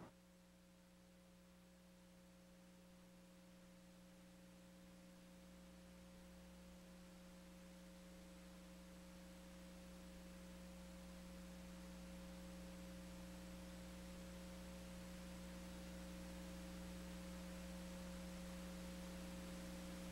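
Faint, steady electrical hum made of a few fixed low tones, slowly growing louder, with no speech over it.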